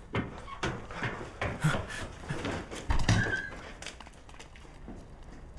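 Hurried footsteps on a hard floor, with scattered knocks and a heavier thud about three seconds in, then dying away.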